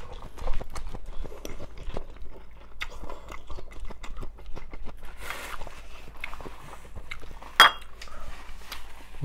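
Mukbang eating sounds: metal chopsticks clicking against a ceramic bowl, with chewing and a short noisy slurp of noodles about five seconds in. About seven and a half seconds in, one loud ringing clink of tableware.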